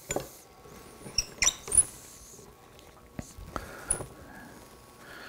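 Metal clamp being fitted and tightened on a wooden molding: scattered clicks and knocks, the loudest about a second and a half in, with a few brief high squeaks.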